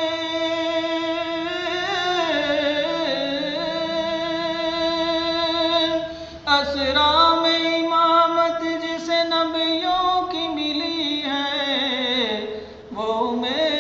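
A solo voice singing a devotional Urdu naat, holding long, drawn-out notes that waver and slide in pitch. It breaks off briefly for breath about six seconds in and again near the end.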